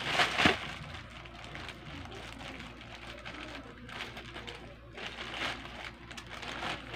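Black plastic shipping pouch being handled and cut open with scissors. There is a short, loud rustle of plastic just after the start, then faint crinkling and snipping.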